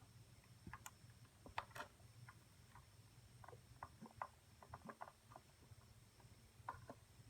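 Faint, irregular small clicks and taps of a steel desoldering needle and soldering iron working a component lead on a circuit board, over a low steady hum.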